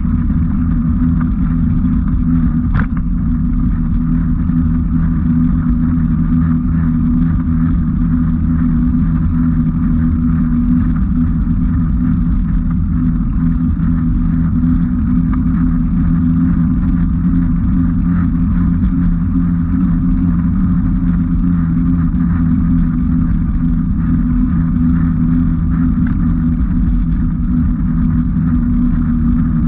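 Steady low hum and rumble of a vehicle travelling along a gravel track at an even speed, with one brief click about three seconds in.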